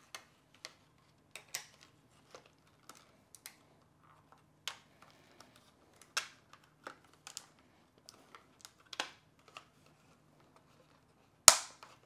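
Clear plastic clamshell packaging of a laptop RAM kit being pried open and handled: scattered sharp plastic clicks and crackles, with one louder snap near the end.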